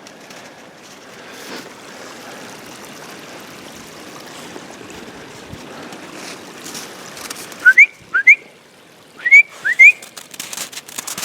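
Two pairs of short, loud, rising whistles, the pairs about a second and a half apart, over a faint steady hiss; clicks and rustling follow near the end.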